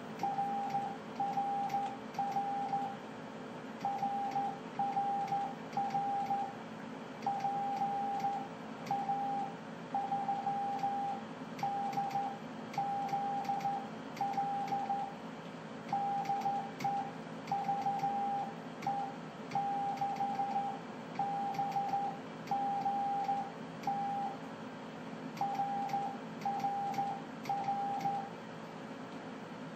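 Morse code (CW) tone on a ham radio transceiver during 432 MHz moonbounce operating: one mid-pitched note keyed on and off in slow, regular groups of long dashes. A steady receiver hiss and hum runs underneath.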